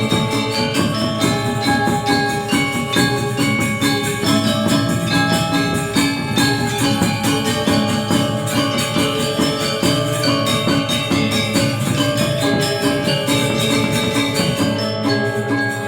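Balinese gamelan music: bronze metallophones struck with mallets in quick, dense patterns, the ringing tones layered over one another.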